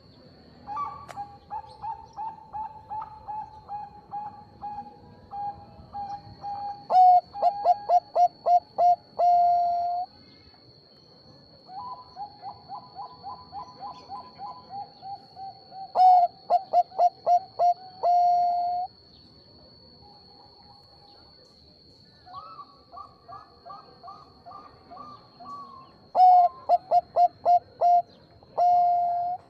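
Bangkok-type perkutut (zebra dove) singing three song phrases. Each phrase starts with a run of soft, quick, rolling notes and builds into a series of loud coos ending in a longer held note. A faint steady high whine runs underneath.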